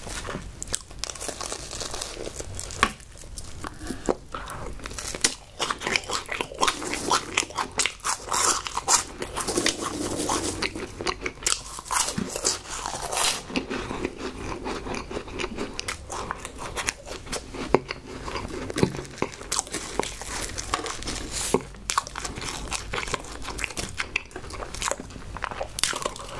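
Close-miked crunching and chewing of Oven Homerun Ball, small crisp baked choux puffs: a dense run of sharp, irregular crackles as the shells break between the teeth.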